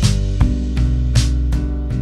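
Background music: strummed guitar chords over a steady drum beat.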